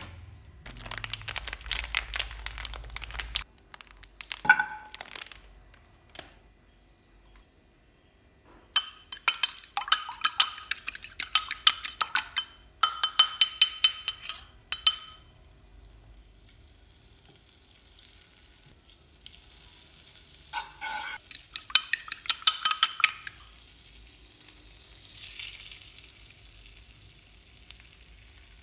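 Eggs being beaten in a ceramic bowl, a utensil clinking rapidly against the bowl in quick runs. Then beaten egg fries in melted butter in a nonstick frying pan with a steady sizzle, and there is another brief run of clinking partway through.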